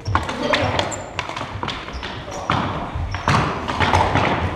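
Floor hockey play: plastic hockey sticks clacking against the ball and the wooden gym floor, with a run of sharp knocks and thuds.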